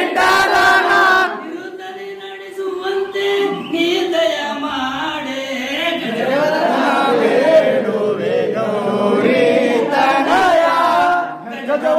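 Group of men chanting a devotional hymn to Ganesha together, with a short lull about two seconds in.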